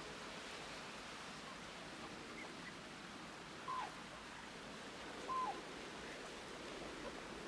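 Two short animal calls about a second and a half apart, each a brief note that drops in pitch, over a steady background hiss.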